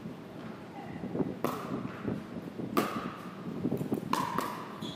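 Pickleball paddles hitting the plastic ball in a rally: four sharp pops, each with a short hollow ring, the first three a little over a second apart and the last two in quick succession.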